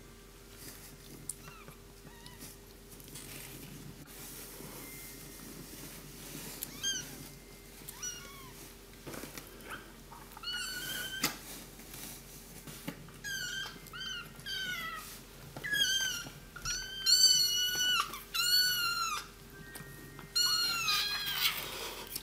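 Three-week-old kittens mewing: thin, high-pitched cries, sparse at first, then a quick run of calls that gets louder in the second half as the mother cat settles down on top of them.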